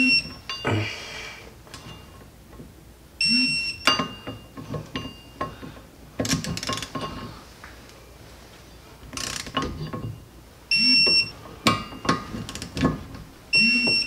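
Digital torque wrench beeping as each wheel-hub bolt reaches the set 55 ft-lb: four short high beeps, with clicks and metallic clinks of the wrench in between.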